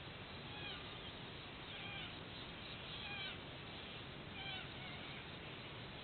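White-bellied sea eagle chicks giving four short, high-pitched, falling chirps, the begging calls of eaglets being fed by a parent, over steady background hiss.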